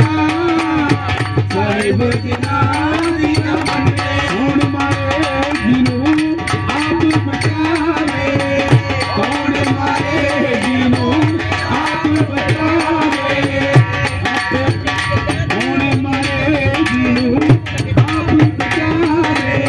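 A man singing a song into a handheld microphone, amplified, over a steady tabla-style hand-drum beat.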